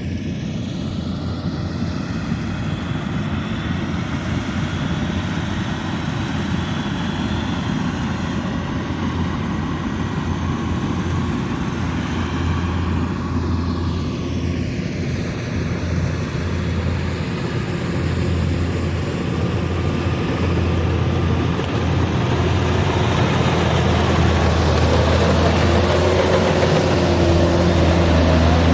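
Kubota DC-105X combine harvester running while it cuts rice, its diesel engine and threshing machinery making a steady drone that grows gradually louder toward the end as the machine comes nearer.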